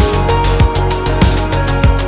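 Background music: electronic track with a steady thumping beat, deep bass and sustained synth notes.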